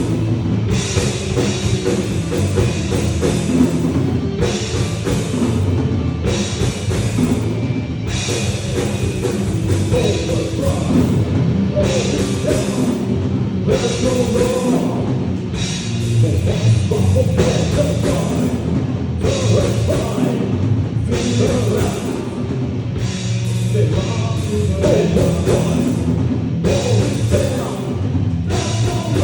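A rock band playing live at a heavy, loud level, with a full drum kit and amplified guitars.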